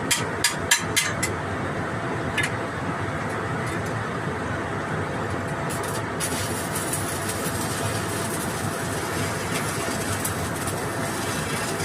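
Quick tapping strikes, about four a second, stop about a second in. Under them a machine runs steadily with a faint hum, and a hiss joins in from about six seconds.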